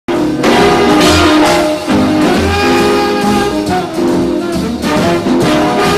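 Instrumental opening theme music with a steady beat, starting abruptly at the very beginning.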